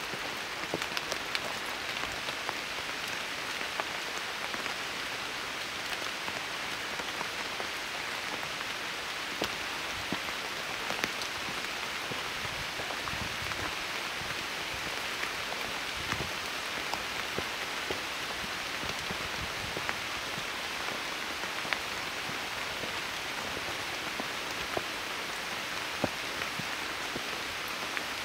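Steady rain falling on dense forest foliage, an even hiss with scattered louder drops ticking close by.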